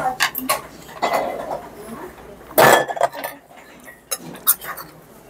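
Metal spoon and chopsticks clinking against brass bowls during a meal: scattered short clinks, with a louder clatter about two and a half seconds in.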